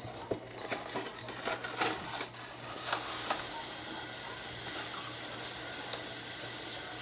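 A few sharp knocks and clatters, then a kitchen tap is turned on about three seconds in and runs steadily into the sink.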